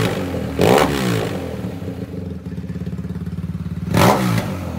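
BMW GS motorcycle's boxer-twin engine idling with a lumpy beat, blipped up and back down twice, about a second in and near the end, as a trial aftermarket exhaust silencer is sound-tested.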